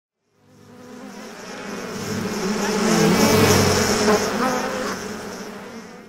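Bee buzzing sound effect that fades in from silence, swells to its loudest about halfway through and fades back down near the end, its volume shaped by keyframed level changes.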